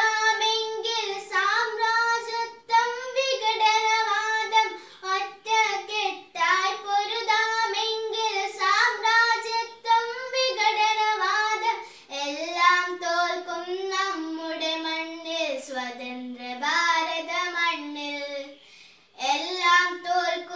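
A young girl singing a Malayalam patriotic song alone, with no accompaniment, in long held notes broken by short breaths. About two-thirds of the way through the melody drops to a lower phrase, and there is a brief pause near the end.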